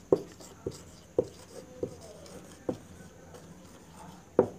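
Marker pen writing on a whiteboard: a series of short, irregular squeaks and scrapes as the letters are drawn.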